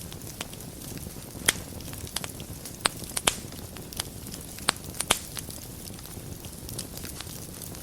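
Wood fire burning in a fireplace: a steady low rumble of flames with scattered sharp crackles and pops, the strongest pops in the first five or so seconds.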